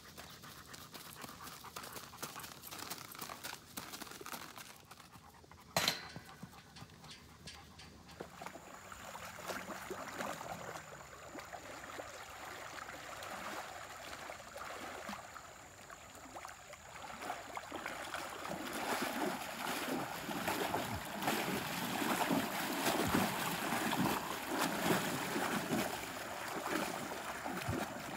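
A grade mare's hooves stepping on a gravel path for the first few seconds, then, after a sharp click, the mare wading through a pond: water sloshing and splashing around her legs and body, growing louder in the last ten seconds as she pushes through the shallows toward the bank.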